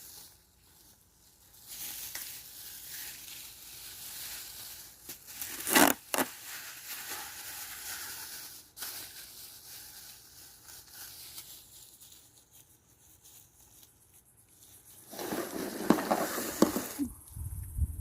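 Cardboard box and packing tape being handled, cut and pulled off a new mini fridge: crinkling and rustling, with a couple of sharp cracks about six seconds in and louder rustling and knocks near the end.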